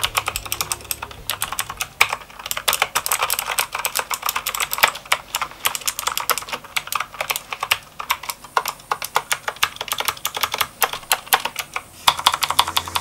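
Typing on a Motospeed CK108 mechanical keyboard with blue switches: a fast, uneven run of sharp, loud keystroke clicks.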